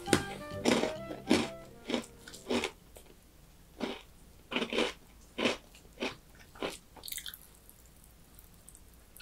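Someone chewing a crunchy brown snack with the mouth open: about a dozen sharp crunches, roughly two a second, tailing off after about seven seconds.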